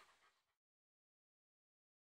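Near silence: a faint tail of sound fades out within the first half second, then dead digital silence.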